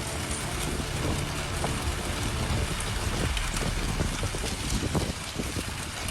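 Steady rushing noise of wind buffeting the microphone over open water, with a low rumble underneath.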